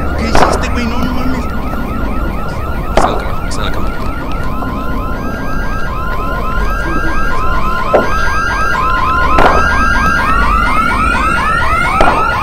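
Car alarm sounding with fast repeating chirps. A second alarm's on-off beeping joins about four seconds in, and a rising wail comes near the end. A steady low rumble runs underneath, and five sharp bangs break through, the two early ones the loudest.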